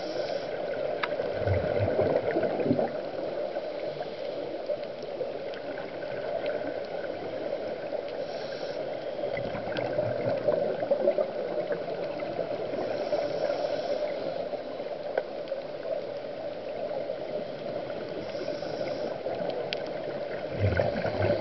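Scuba diver breathing through a regulator, heard underwater: a short hiss with each inhale every few seconds and a low gurgle of exhaled bubbles between, over a steady hum.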